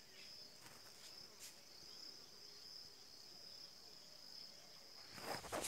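Faint, steady high-pitched trill of crickets. Near the end come a few louder scuffing sounds.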